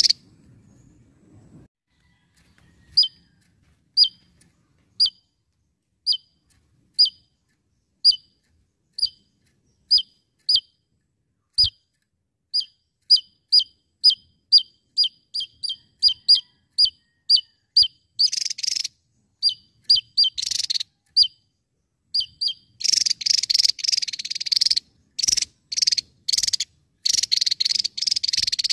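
Javan tesia singing: short, sharp falling notes, at first about one a second from some three seconds in, quickening to two or three a second. In the last third they break into rapid, dense, buzzy rattling bursts.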